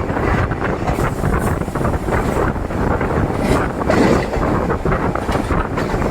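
DEMU train's running noise heard from on board: a steady rumble with irregular rattling and clatter of the coach over the track, and wind buffeting the microphone.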